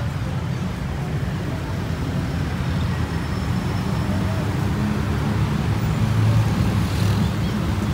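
Street traffic: car and motor scooter engines running in slow, congested traffic, a steady low rumble that grows a little louder about six seconds in.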